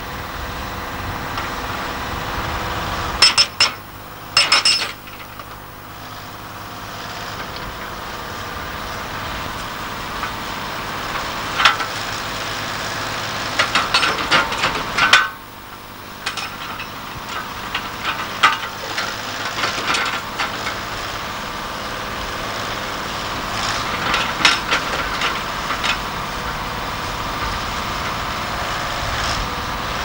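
Excavator-mounted hydraulic breaker hammering rock in short bursts, the blows clattering on the stone, over the excavator's steady diesel engine running.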